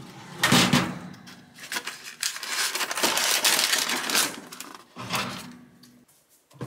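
Paper wrapper crinkling and rustling as a waffle is pulled out of its paper bag. It comes in bursts: a short one just after the start, a long stretch in the middle, and another near the end.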